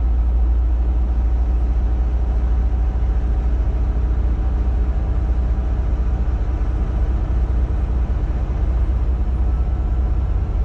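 Semi-truck's diesel engine and road noise heard inside the cab while driving: a steady, heavy low rumble.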